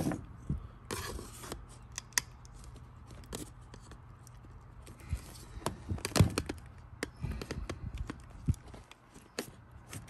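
Long needle-nose pliers clicking and scraping inside the plastic handle tube of a Shark Navigator vacuum, working loose a ballpoint pen lodged in the elbow that is clogging it. Irregular clicks and short scrapes.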